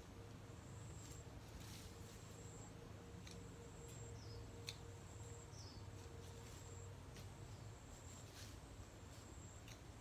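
Quiet picking of leafy stems from a pile of cut branches: a few faint, scattered snaps and clicks as stems break, with a few short high chirps.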